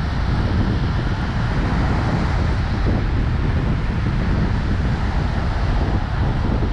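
Wind buffeting the microphone with a steady low rumble, over the wash of breaking surf.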